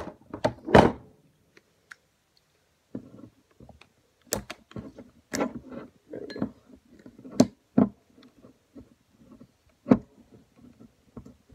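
Irregular clicks, knocks and rustles from handling a glass Ramune soda bottle and picking at the plastic packaging over its top, which holds fast.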